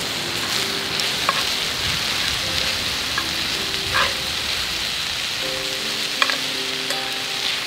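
Chicken and cabbage sizzling hard in a Turk iron frying pan: a steady frying hiss, broken by a few sharp ticks as the food is stirred. A soft melody plays underneath.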